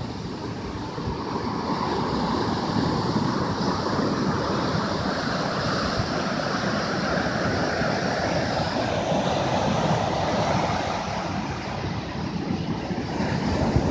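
Ocean surf breaking and washing in on the beach: a steady rush of water noise that builds over the first couple of seconds, eases slightly near the end, then swells again.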